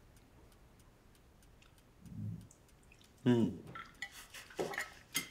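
Cutlery clicking and clinking against plates at a dinner table, with scattered light taps and a sharper clink near the end. A brief low hum about two seconds in and a short sound falling in pitch just after three seconds break the quiet.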